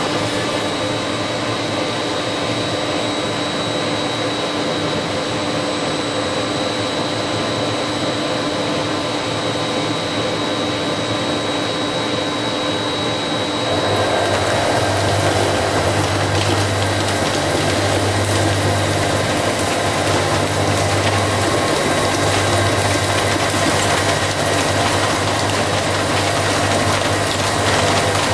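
Horizontal boring mill running with a steady whine from the spindle and drives. About halfway through, the 200 mm face mill at 250 rpm bites into the workpiece for a heavy face-milling cut, and the sound turns louder and rougher with a pulsing low rumble.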